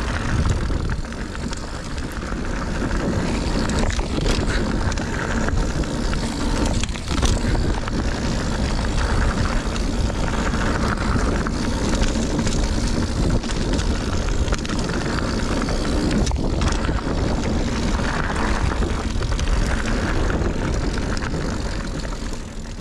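Mountain bike riding down a dirt trail, heard from an action camera on the bike or rider: steady wind rumble on the microphone, tyre noise on the dirt, and a few sharp knocks and rattles as the bike hits bumps. The sound fades out near the end.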